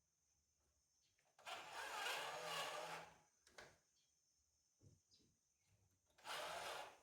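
Electric drill boring mirror-mounting holes through the truck's sheet-metal door: one run of about a second and a half, then a shorter run near the end.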